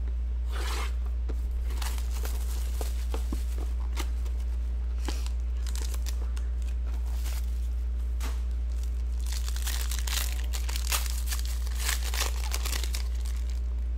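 Plastic shrink-wrap torn off a 2014 Panini Playbook football card box, then its foil pack pulled out and torn open, crinkling. The tearing and crinkling come in irregular bursts and are busiest near the end, over a steady low electrical hum.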